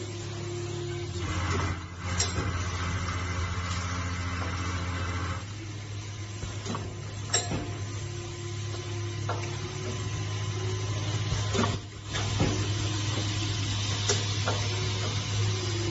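Ultrasonic welding machine for breathing valves running: a steady low hum, with a louder stretch of hissing noise from about one to five seconds in and a few sharp clicks.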